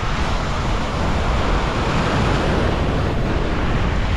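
Ocean surf breaking and washing over the shoreline rocks, a steady rushing wash, with wind buffeting the microphone.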